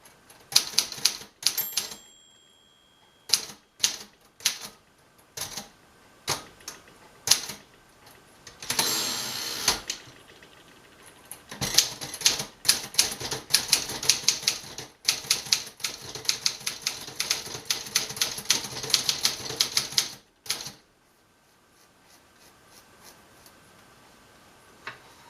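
1956 Remington Letter-Riter portable manual typewriter being typed on: spaced single keystrokes, with a short ring of the carriage margin bell about one and a half seconds in and a longer swishing sweep like a carriage return about nine seconds in. A fast run of keystrokes follows from about twelve to twenty seconds, then the typing stops.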